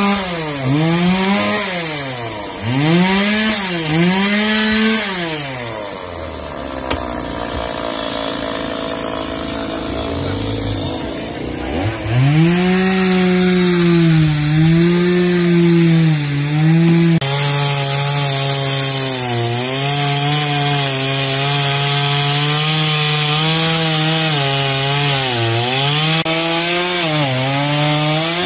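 Chainsaw cutting fallen branches, its engine revving up and down again and again, dropping to a lower run for several seconds before revving hard again.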